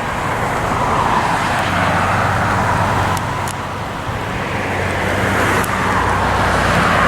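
Steady road-traffic noise: engine hum under tyre noise that swells and fades slowly, loudest about a second in and again near the end.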